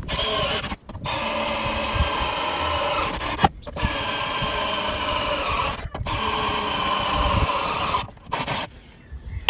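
Cordless drill boring holes in the car's sheet steel in several runs of about two seconds, each stopping abruptly, with a steady motor whine over a harsh cutting noise.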